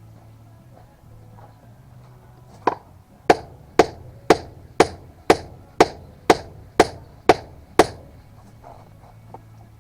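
A run of eleven sharp strikes, about two a second, each with a short ringing tail, over a faint low steady hum.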